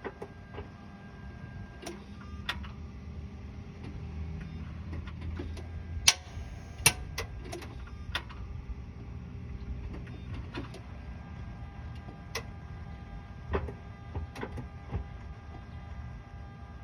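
Sharp clicks at irregular intervals over a low mechanical hum from a 2007 Mitsubishi Outlander that will not start as the key is turned; the loudest two clicks come about six and seven seconds in. The engine does not fire.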